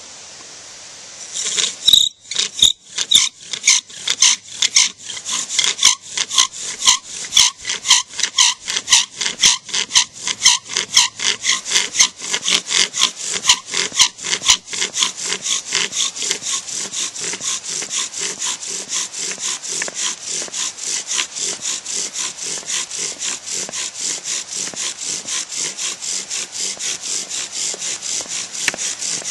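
Bow drill being worked: an arborvitae spindle spun back and forth against its hearth board, a rhythmic rasping with each stroke of the bow. The strokes start about two seconds in, uneven at first, then settle into a faster, steady pace as the hearth begins to smoke from the friction heat.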